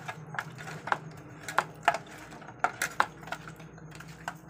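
Irregular clicks and light taps of whole climbing perch and fingers knocking against a stainless steel plate while the fish are rubbed with turmeric and salt.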